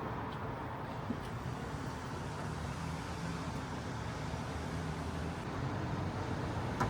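Steady low rumble and hiss of road vehicles, with a few faint clicks.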